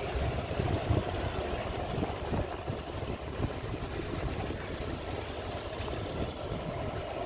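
Motorboat engine running steadily while the boat is under way, with irregular low rumbling gusts of wind on the microphone.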